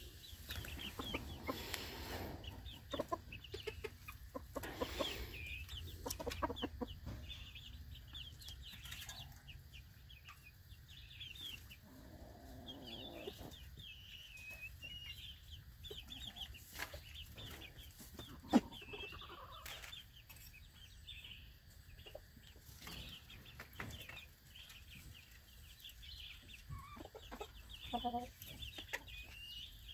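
Chickens clucking now and then, over a steady high chirping in the background, with a single sharp click a little past halfway.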